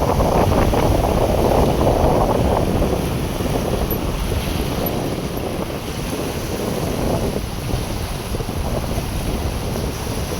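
Strong beach wind buffeting the microphone in gusts, with surf beneath; the gusts are strongest in the first few seconds, then ease slightly.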